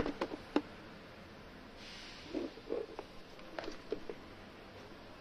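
Handling noise from a scooter hub-motor wheel with a bolted-on disc brake rotor being turned over by hand: a few light clicks at the start, a brief rustle about two seconds in, then scattered soft knocks.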